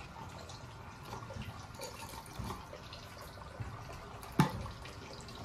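Faint rustling and small crackles of damp moss being handled, then a single sharp click about four seconds in as the clear plastic spool of nylon thread is picked up.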